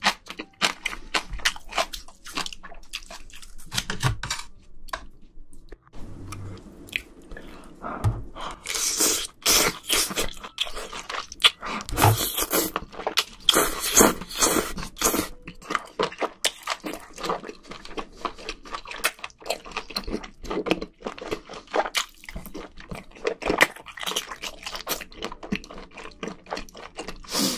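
Close-miked eating of spicy scallops: wet chewing and mouth smacks in irregular clicks, with longer, louder slurps as scallop meat and sauce are sucked off the shell, about nine seconds in and again around twelve to fifteen seconds in.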